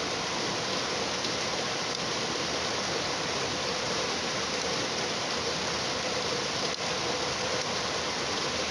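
Steady rain, a dense even hiss that holds at one level throughout.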